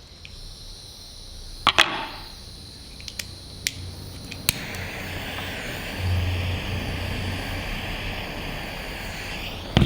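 A few sharp clicks and knocks, then from about halfway a steady hiss with a low rumble underneath as the spirit burner under the model steam engine's boiler is lit and burns; another sharp click near the end.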